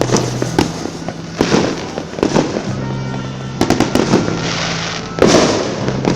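Fireworks going off: a run of sharp bangs and crackling reports, the loudest about five seconds in, with background music playing underneath.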